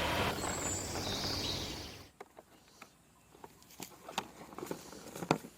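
Truck engine noise that cuts off about two seconds in, followed by faint, scattered clicks and taps.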